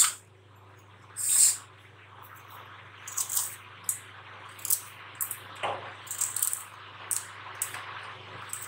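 Knife cutting a piece of fresh ginger held over a steel mixer-grinder jar: short, crisp slicing scrapes at irregular intervals as small pieces drop onto the soaked rice in the jar.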